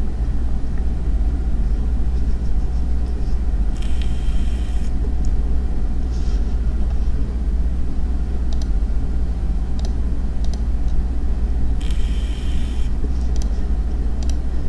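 Steady low rumble with two short bursts of hiss, about four seconds in and again near twelve seconds, and a few faint clicks.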